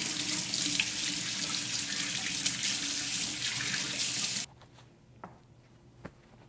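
Kitchen faucet running into a stainless steel sink as beef short ribs are rinsed by hand under the stream to wash off blood and bone fragments, water splashing off the meat and hands. The water sound cuts off suddenly about four seconds in.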